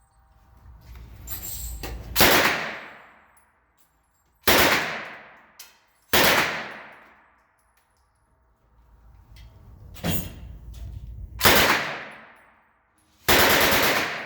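9mm Uzi submachine gun firing about five short bursts, each trailing off in a long echo. The last burst, near the end, is the longest.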